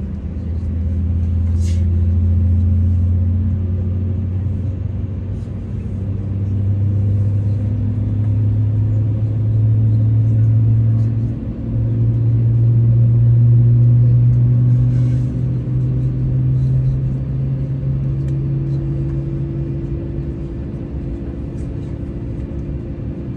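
Airbus A321ceo cabin rumble from its IAE V2500 engines running at low power on the ground before takeoff. A deep hum slowly rises in pitch and grows louder through the middle, then eases off.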